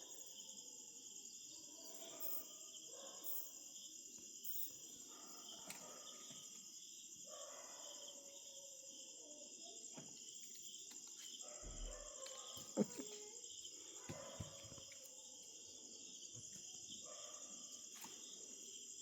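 Steady night-time chorus of crickets chirping, with a few soft knocks and rustles; the sharpest knock comes about two-thirds of the way through.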